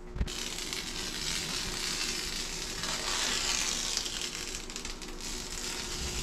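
Painter's masking tape being peeled off a freshly painted ceiling: a continuous tearing hiss that starts suddenly just after the beginning.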